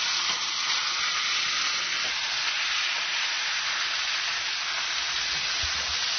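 Rack of pork searing in hot oil in a stainless steel sauté pan, a steady hissing sizzle.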